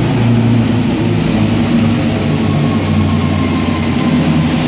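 Pulling tractor's diesel engine running hard under load as it drags the weight sled down the track: a loud, steady, deep engine drone.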